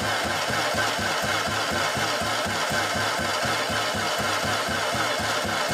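Toyota 2JZ-GTE straight-six being cranked on its starter motor without firing: a steady, even churn of about five or six compression pulses a second. The engine is being spun over to build oil pressure.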